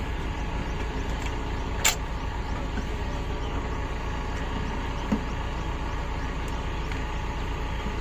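Steady low engine rumble, with a sharp click about two seconds in and a fainter one about five seconds in as the fuel-line connector on the diesel filter is handled.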